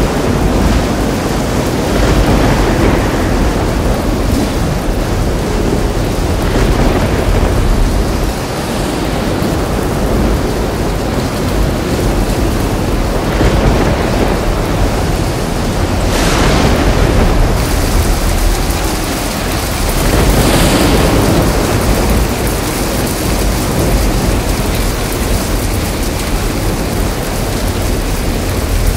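Heavy rain pouring steadily during a thunderstorm, with low thunder rumbling underneath that swells louder several times.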